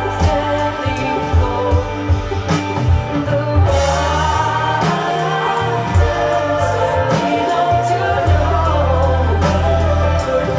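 Music: a song playing on, with singing that has no clear words over instrumental accompaniment and a strong bass.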